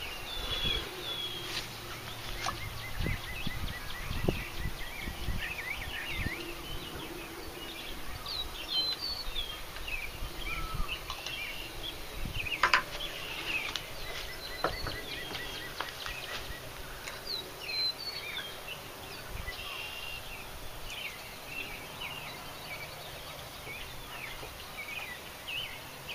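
Several birds chirping and singing in short rising and falling notes throughout, with scattered light clicks and knocks of PVC pipe fittings and a can being handled.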